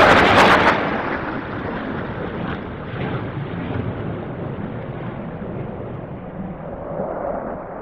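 Jet engine noise of a low-flying F-15 fighter jet. It is loudest in the first second as the jet passes close, then becomes a long rumble that fades off and swells again near the end as another pass approaches.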